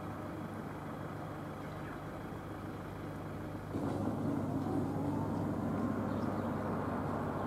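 Street ambience carrying a steady low engine hum, which grows louder about halfway through.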